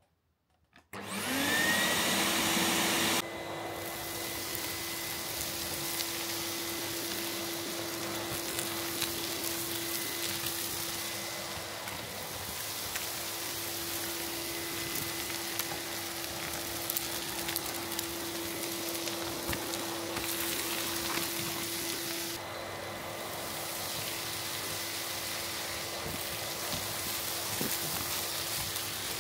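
ETA 3404 vacuum cleaner switched on: the motor spins up with a rising whine about a second in, then runs steadily, drawing air through a cyclone pre-filter and a plastic pipe. Scattered faint ticks come from grit being sucked up off the attic floor.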